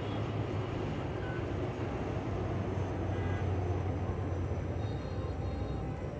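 Steady low rumble of engine noise, even throughout with a deep hum underneath.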